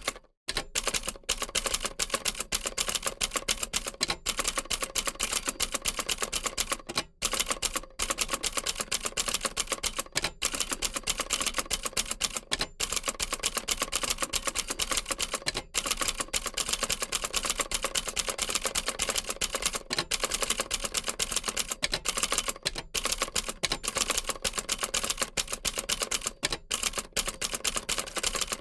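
Old manual typewriter typing steadily: a fast, continuous run of key strikes clicking against the platen, broken by a few brief pauses.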